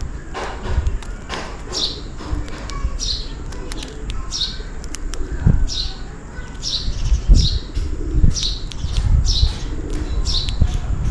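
House sparrows chirping over and over, a short chirp roughly every half second to second, with irregular low thumps and rumbling underneath.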